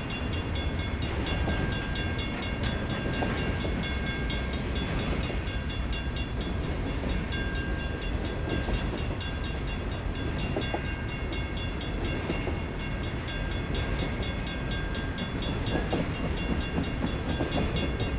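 Intermodal freight train rolling past, its flatcars loaded with highway trailers: a steady low rumble of steel wheels on the rails.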